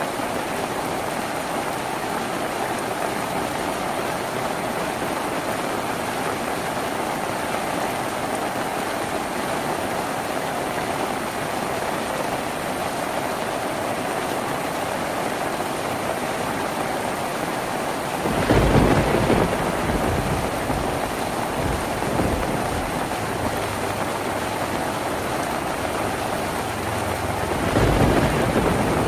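Steady rain falling on a tin roof, heard as an even hiss. Two low rolls of thunder come in, one about two-thirds of the way through and another near the end.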